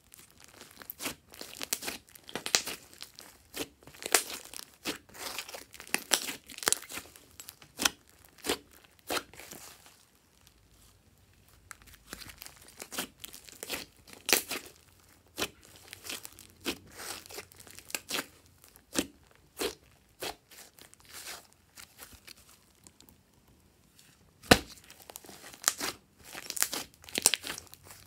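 Hands squeezing, folding and pressing a large mass of glossy slime, giving dense, irregular crackles and small pops. The crackling eases off around ten seconds in and again around twenty-two seconds in, and one sharp pop about twenty-four seconds in is the loudest sound.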